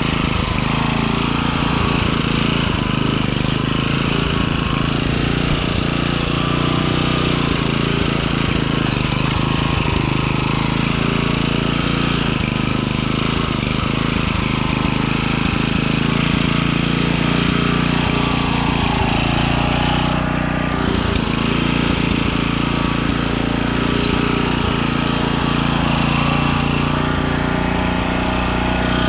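Small gas garden tiller's single-cylinder engine running steadily under load as its tines churn loose soil in a raised bed.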